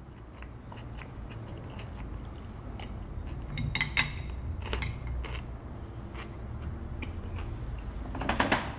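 A person eating at a table: chewing, with a fork clicking and scraping on a plate in scattered sharp clicks, loudest about four seconds in and again in a cluster near the end, over a low steady hum.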